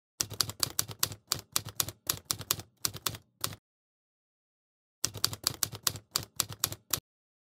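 Typing sound effect: rapid key clicks, about five a second, in a run of roughly three and a half seconds, a pause, then a second run of about two seconds, matching on-screen text typed out letter by letter.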